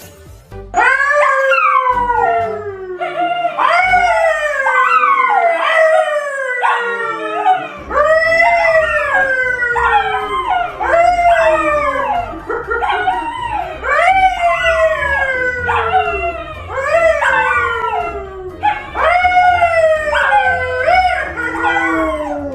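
An animal howling over and over, roughly one falling howl a second, with background music whose steady low beat comes in about eight seconds in.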